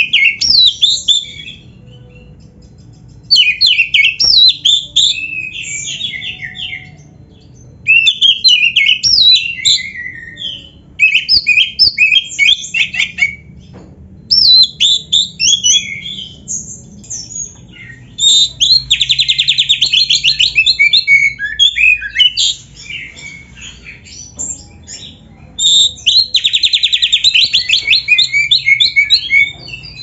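Black-breasted Oriental magpie-robin (kacer) singing loudly in bursts of varied, fast whistled phrases with short pauses between them. Twice, around the middle and near the end, it breaks into a long, very rapid trill.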